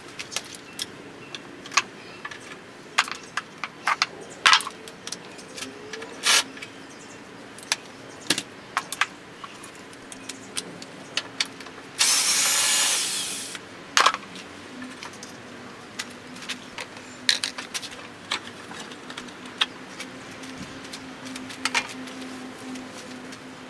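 Hand tools clicking and clinking against metal parts in irregular, scattered strikes while a lawnmower engine is taken apart, with a loud rush of noise lasting about a second and a half about halfway through.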